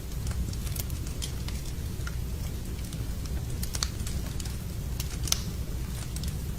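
Wood fire in a fireplace crackling: irregular sharp pops and snaps over a steady low rumble, with one louder snap about five seconds in.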